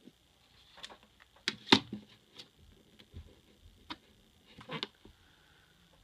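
Scattered light clicks and taps of a cable, plug and LED strip being handled on a desk, about half a dozen in all, the loudest a little under two seconds in.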